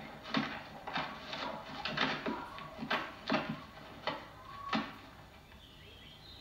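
Children at play kicking an inflated pig's bladder about on grass: a quick run of short, sharp sounds, about two a second, that stops about five seconds in.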